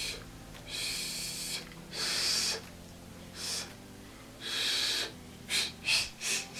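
Repeated breathy blows of air through a Swiss warbler bird whistle held on the tongue, producing hiss rather than a clear chirp. About eight blows, the last few short and quick together.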